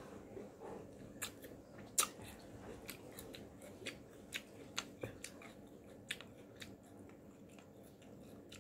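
Chewing crisp unripe mango slices in a wet, spicy rujak sauce: a run of faint, irregular crunches and wet mouth clicks, the sharpest about two seconds in.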